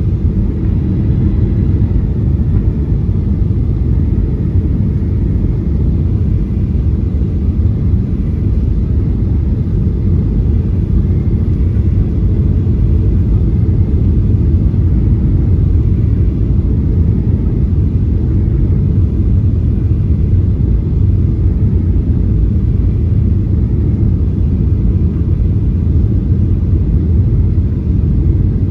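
Steady low rumble of an airliner heard from inside the passenger cabin.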